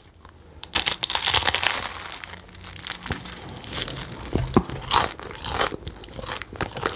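Crunching and crinkling close to the microphone while store-bought pastries are eaten. A dense crackle starts under a second in and thins into scattered sharp crackles.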